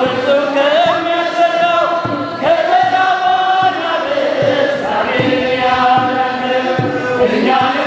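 A group of men singing an Ethiopian Orthodox mezmur (hymn) together in long, held chant-like notes. A steady low beat runs underneath.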